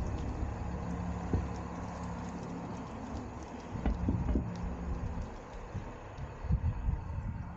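Downtown street traffic: a steady low hum of vehicle engines, with a few short thumps in the middle and again near the end.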